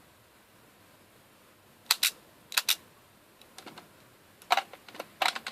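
Sharp plastic clicks and snaps from the toy Gabutyra de Carnival being handled as a Zyudenchi battery is loaded, coming in small groups of two or three a second or so apart, with fainter ticks between.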